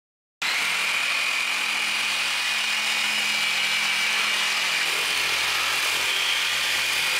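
Corded reciprocating saw cutting through old wooden floorboards beside a floor joist, running steadily with a high whine. It starts abruptly about half a second in.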